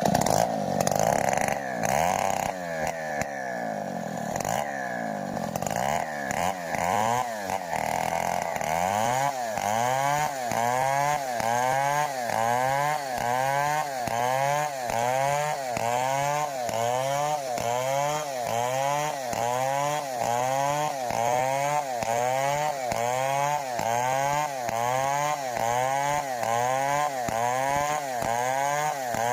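Stihl 070 two-stroke chainsaw engine running at high revs, its pitch swinging up and down irregularly at first. From about nine seconds in it settles into a regular surge, rising and falling about three times every two seconds.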